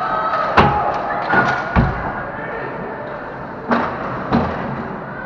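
Ice hockey play at the net: five sharp knocks and thuds from sticks and puck, spread over about four seconds, over a background of voices.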